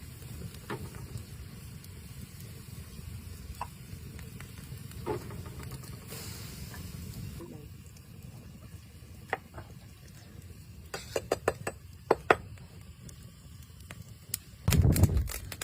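Food cooking: a low steady rumble with scattered crackles and taps, a quick run of clicks a few seconds before the end, and a loud thump near the end.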